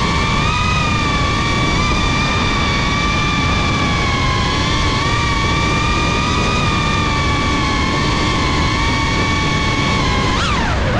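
The four brushless motors and propellers of a GEPRC Cinelog35 cinewhoop FPV drone whining at a fairly steady pitch in flight, over a rushing noise. Near the end the pitch dips sharply and rises again as the motor speed drops and picks back up.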